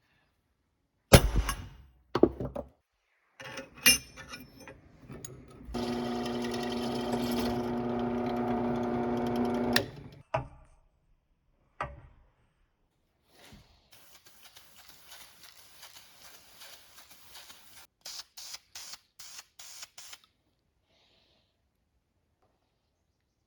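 A few sharp knocks, then a small motor running steadily for about four seconds, then scattered clicks and a quick run of light taps.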